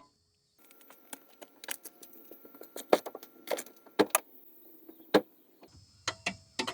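Tata Tiago EV switching on with its key: a string of sharp clicks from the relays and contactors as the 12 V battery energises the main battery pack, over a faint steady hum of the car's systems powering up, with some key jangling.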